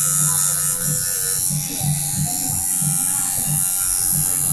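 Electric tattoo machine buzzing, steady at first, then pulsing unevenly from about a second and a half in.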